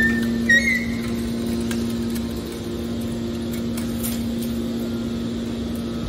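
Hydraulic scrap metal baler running with a steady low hum as its ejection cylinder pushes a compressed bale out of the press chamber. A few short high metallic squeaks sound in the first second.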